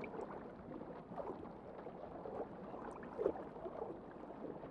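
Muffled underwater ambience: soft gurgling and bubbling of moving water, with short bubbly chirps scattered through it.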